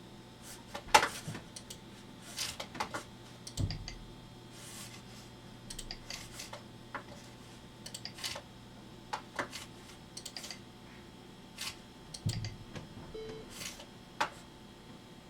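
Irregular, scattered clicks from working a computer's mouse and keys, over a faint steady hum, with two dull low thumps, about four and twelve seconds in.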